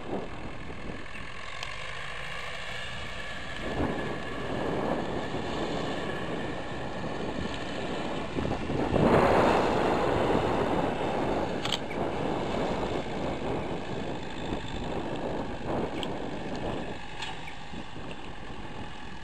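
Wind buffeting the microphone, loudest about halfway through, over the distant sound of a departing diesel-hauled freight train.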